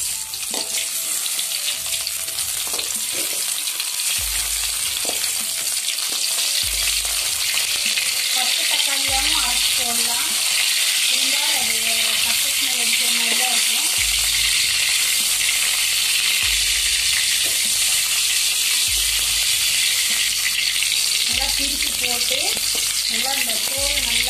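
Whole tomatoes sizzling steadily in hot oil in a metal pan as they are sautéed, the sizzle building over the first few seconds. A metal ladle knocks and scrapes against the pan as it turns them near the start.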